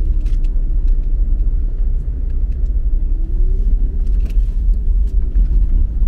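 A car driving on a downhill asphalt track, heard from inside the cabin: a steady low rumble of engine and tyres. The engine hum rises a little about three seconds in, then eases.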